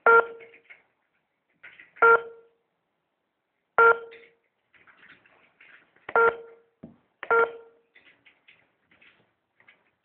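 Innovation F3 fingerprint attendance machine beeping five times at irregular intervals of one to two seconds, short electronic beeps, as it is operated to enroll a new user's fingerprint.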